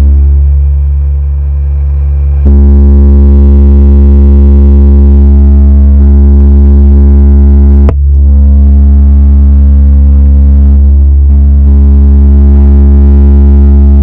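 Repaired 12-inch loudspeaker playing a steady, loud low bass tone during its sound test, buzzy with overtones. The tone dips briefly in the first couple of seconds, and there is a single click about eight seconds in.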